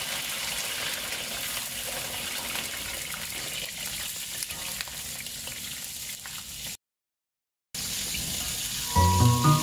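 Red chillies, garlic and candlenuts deep-frying in hot oil in a wok: a steady sizzle with small crackles. It drops out for about a second two-thirds of the way through, and music comes in near the end.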